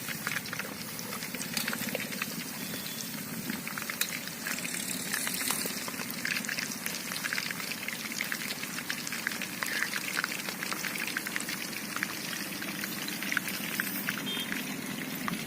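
Whole marinated chicken deep-frying in hot oil in a small kadai: the oil bubbles and crackles steadily, a dense spatter of tiny pops over a continuous hiss.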